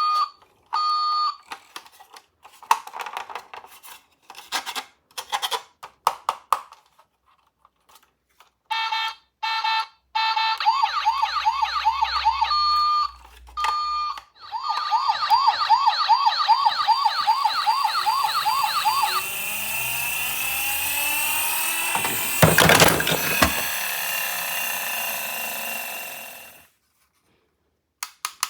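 Toy ambulance's electronic siren: a few short beeps and scattered clicks, then a fast warbling wail about ten seconds in that breaks off briefly and resumes, changing to a denser sweeping siren sound that cuts off near the end.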